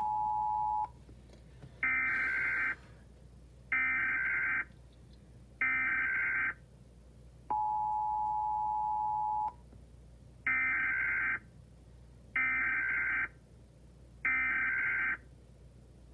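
Emergency Alert System tones: a steady two-note attention tone that cuts off about a second in, then three short warbling data bursts, then the attention tone again for about two seconds and three more bursts, with the attention tone starting once more at the very end.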